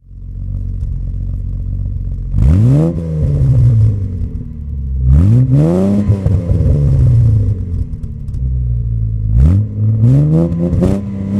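Car engine idling and being revved four times, each rev rising quickly and sinking back to idle, the last two close together near the end.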